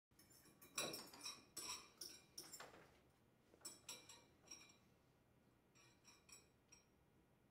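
Spoons clinking against bowls as two people eat: a scatter of light, sharp clinks, several a second at first, thinning out toward the end.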